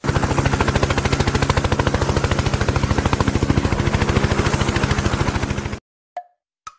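A loud, rapid, even pulsing, about ten beats a second, that cuts off suddenly near the end, followed by two sharp clicks about half a second apart.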